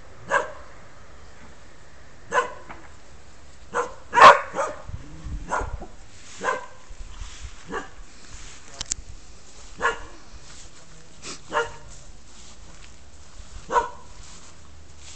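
A dog barking: about a dozen single barks spaced irregularly a second or two apart, the loudest a little over four seconds in.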